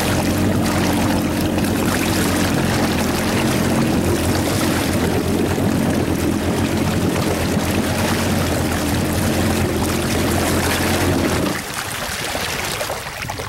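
Jet ski engine running steadily as the craft moves across the lake, with the rush of water along the hull. Near the end the engine note drops away and only softer water sounds remain.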